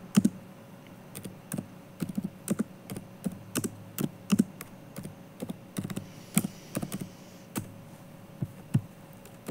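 Irregular clicking and tapping, a few short clicks a second, over a faint steady hum.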